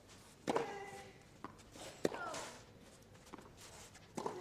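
Tennis ball struck by rackets in a baseline rally on a clay court: three sharp hits about one and a half to two seconds apart, with fainter ball bounces between them.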